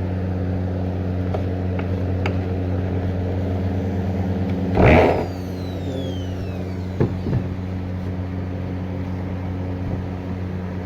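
Electric woodworking machine motor running with a steady hum. A brief loud burst of noise comes about five seconds in, then two faint knocks about two seconds later.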